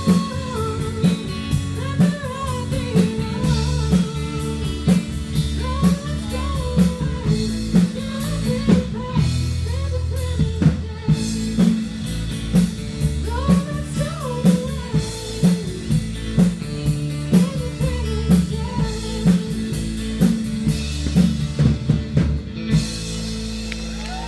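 Live band playing a blues-rock song: a steady drum-kit beat, bass, electric guitar and a singer. The band stops near the end.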